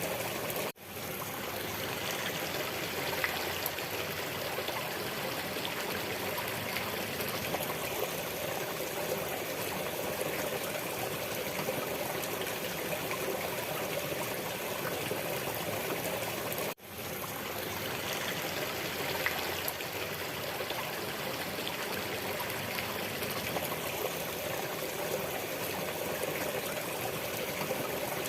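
Steady running water of a stream, trickling without pause. The sound cuts out briefly twice, near a second in and again about sixteen seconds later, each time coming straight back.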